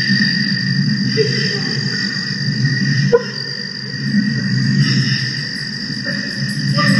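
A strange chattering call from an unseen animal over a steady chorus of night insects. A sharp click with a short falling tone comes about three seconds in.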